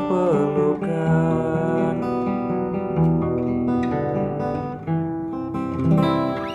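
Acoustic guitar playing the closing instrumental bars of a song, chords strummed and plucked and left ringing.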